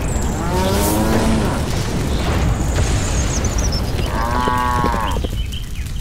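Two cow moos, the first about half a second in with a falling pitch, the second about four seconds in, over a steady noisy rumble.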